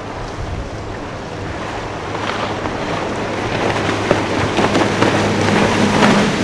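Motorboat running at speed through choppy water: a steady engine drone under the hiss of spray and the slap of the hull on the waves, growing louder as the boat comes closer.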